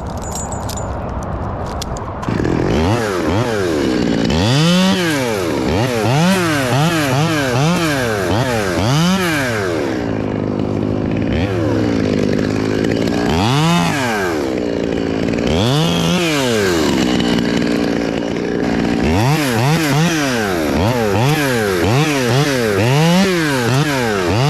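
Chainsaw revved up and down over and over, its pitch rising and falling about once a second in runs of several revs, with a sudden jump in loudness about two seconds in.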